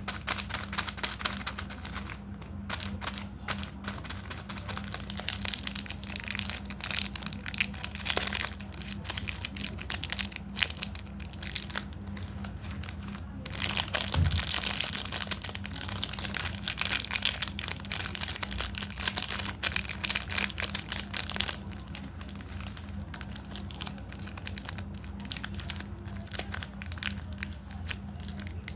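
Plastic and foil candy wrappers crinkling and crackling as sweets are unwrapped and handled: a dense, irregular run of rustles and small cracks.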